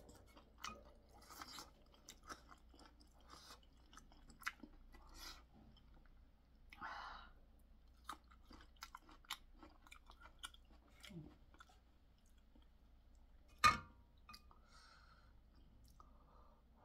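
Close chewing of chewy, boneless spicy chicken feet, with many small wet mouth clicks. A single sharp knock about two-thirds of the way through is the loudest sound.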